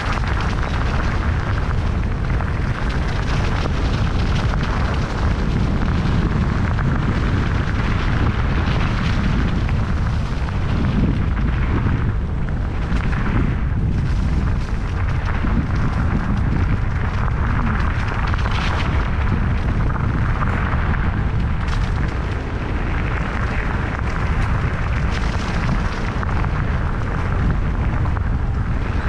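Steady wind buffeting on a GoPro's microphone, mixed with the rolling noise of mountain-bike tyres during a ride: a loud, continuous low rumble with a rougher hiss over it.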